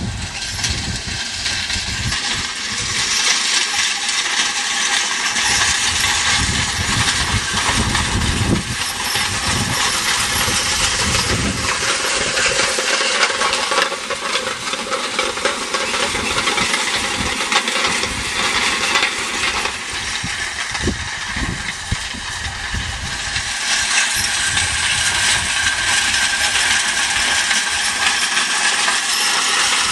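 Ground-driven rotary hay rake in use, its wheels turning the raking reel: a loud, continuous, dense metallic rattling and clinking of tines and gearing, with irregular low rumbles underneath.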